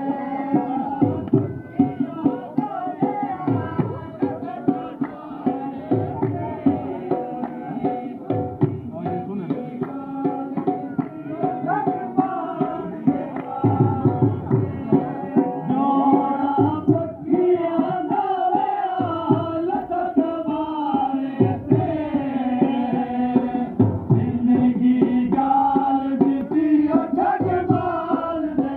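Ludi dance music played from a portable loudspeaker: a steady, driving dhol beat under a melodic line that bends up and down.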